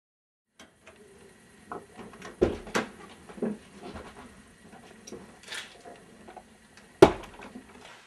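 A string of irregular knocks and bumps with faint rustling, as of people moving about and handling things. The loudest is a sharp bang about seven seconds in.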